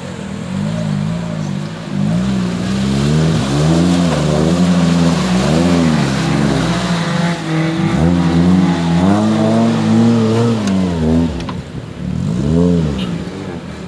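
Off-road 4x4's engine revving up and down over and over as the vehicle works through mud, its pitch climbing and dropping several times, with a last rev near the end.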